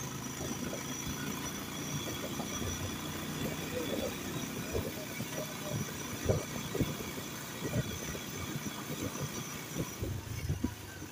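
Motorcycle engine running low and steady as the bike rolls over a rough gravel road, with scattered thumps and knocks from the bumps.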